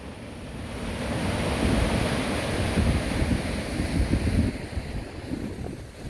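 Sea waves washing in, swelling over the first couple of seconds and easing off near the end, with wind buffeting the microphone.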